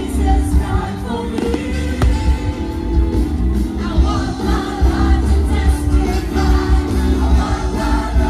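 Music: a song with group, choir-like singing over a heavy bass beat.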